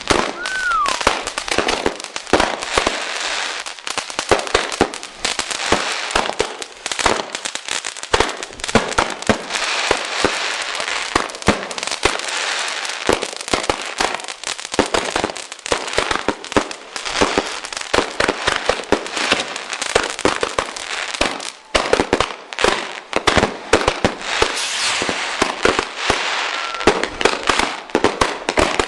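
Fireworks going off without pause: a dense, irregular stream of crackling and bangs from bursting shells and crackle stars. A short falling whistle sounds about half a second in.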